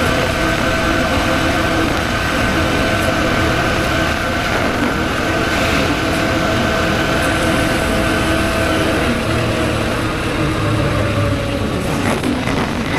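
Motorcycle engine running at a steady speed under a wide hiss of road and wind noise. The engine note sags slightly about nine seconds in.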